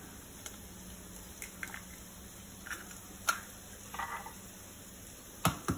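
Eggs being cracked into a plastic bowl: scattered light taps and knocks of shell, with a sharper knock a little over three seconds in and a pair of sharp knocks near the end.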